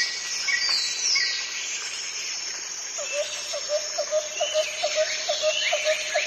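Wild birds calling: short chirps and high gliding whistles over a steady background hiss. About halfway through they are joined by a quick run of low, even notes, about four a second.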